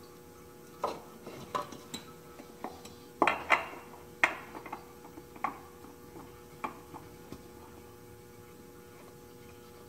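Scattered clicks and light knocks of a new spin-on oil filter being wedged up into its tight spot and threaded onto the 4.6 V8's filter mount by hand. The knocks are loudest and most frequent around the middle and stop near the end, over a steady hum.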